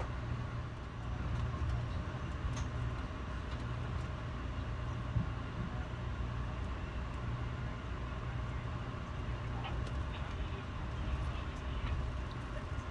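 Steady low rumble inside an Amtrak passenger coach as the train rolls along, with a few faint clicks.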